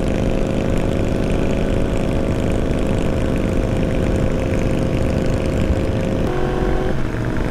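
Yamaha R1 inline-four engine running steadily at road speed, with wind and road noise over it. About six seconds in the engine note changes pitch, and it dips briefly just before the end.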